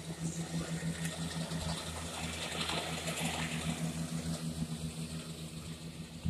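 Tractor engine and a Krone hay mower running as they pass close by while mowing hay. A steady, fluttering hum underlies the cutting noise, which swells to its loudest about two to three seconds in and then fades as the machine moves away.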